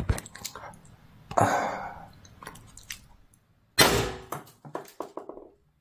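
Two sharp shots about two and a half seconds apart, the second louder, from an HDR 68 CO2-powered .68-calibre launcher firing 6.6 g steel-core rubber balls, with fainter clicks in between and after.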